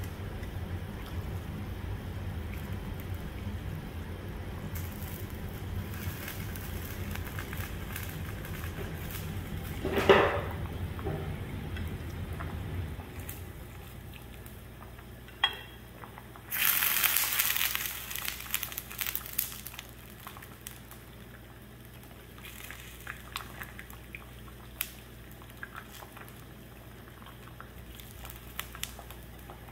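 Dashi simmering in a clay donabe pot on a portable butane gas burner as thin wagyu slices are swished through it with chopsticks; a low rumble carries the first half and fades out about halfway through. A sharp knock comes about ten seconds in, and a few seconds of louder splashing hiss come past the middle, with scattered light clicks of chopsticks on the pot.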